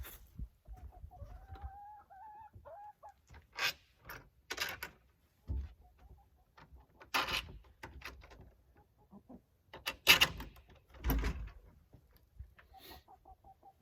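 Chickens clucking in the coop: one drawn-out, wavering call in the first few seconds and a quick run of short clucks near the end. Several sharp scrapes and knocks come in between, the loudest about ten seconds in.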